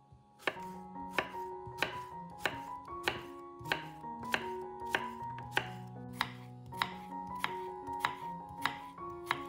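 Knife chopping on a cutting board in steady strokes, a little more than one and a half a second, with background music underneath.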